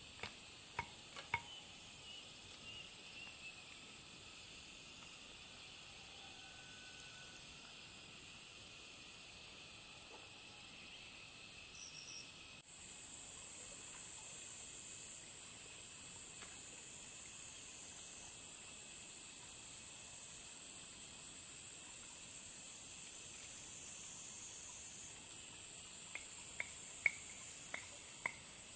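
Steady high-pitched insect chorus, which suddenly gets louder about halfway through. A few sharp clicks sound in the first second or so and again near the end.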